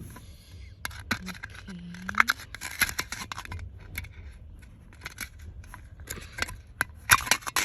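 Porridge packaging being opened by hand: irregular clicks, scrapes and rustles of the package being worked open.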